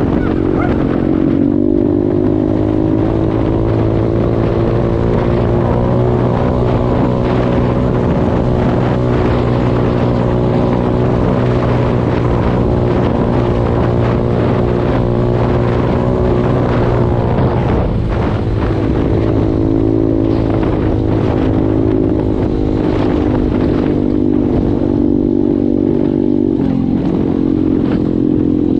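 KXD 612 Pro pit bike's single-cylinder engine running at steady, fairly high revs while riding, briefly easing off about two-thirds of the way through and again near the end, with wind rumbling on the microphone.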